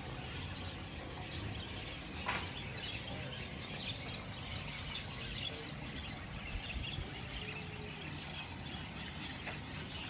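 Many birds chirping, with short calls scattered throughout and one sharper call about two seconds in, over a steady low background noise.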